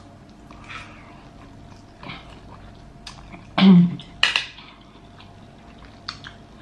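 Close-miked eating sounds: chewing and mouth noises with small clicks of cutlery and dishes, and a short voiced sound about three and a half seconds in followed by a sharp click.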